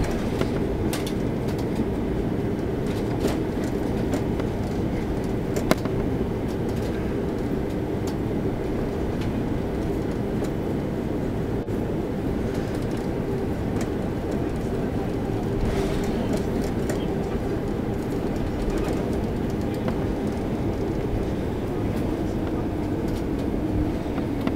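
Cabin noise of an Airbus A330-300 taxiing after landing: a steady low rumble from the rolling wheels and idling engines, with a faint hum and a few light clicks and rattles.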